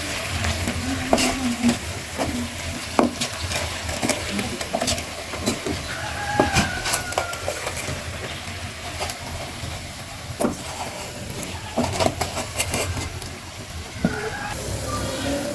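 Cooking sounds: food sizzling in a pan while a utensil knocks and scrapes against the pot many times. A short, falling high-pitched sound comes about six seconds in.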